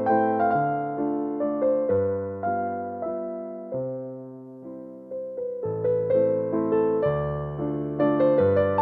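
Background music: a gentle electric piano playing soft chords and melody notes, dipping quieter about halfway through before picking up again.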